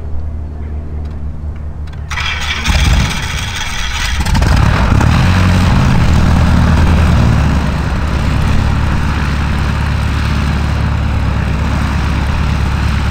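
Van's RV-7's piston engine starting about two seconds in, catching and running loudly for a few seconds, then settling to a steadier, lower run as the aircraft begins to taxi.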